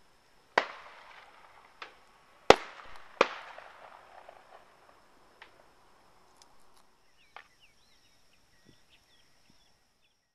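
A series of sharp bangs, each with a short echoing tail, coming at uneven intervals. The loudest is about two and a half seconds in, and the bangs thin out into fainter pops; a faint high steady whine runs beneath.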